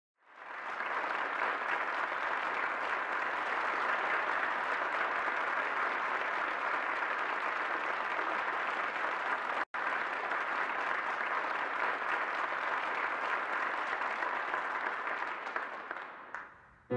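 Audience applauding steadily in a concert hall. It swells up at the start, cuts out for an instant about ten seconds in, and dies away near the end.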